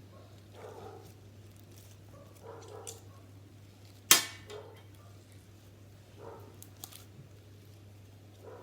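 A single sharp snap or click about four seconds in, with a few faint, soft sounds before and after it over a steady low hum.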